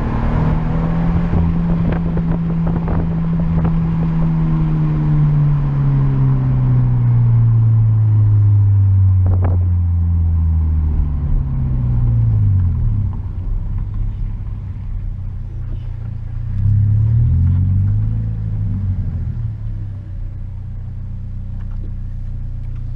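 Car engine through a newly fitted aftermarket cat-back exhaust, its pitch falling slowly over about twelve seconds as the revs drop, then running low with a short rise and fall in revs later on.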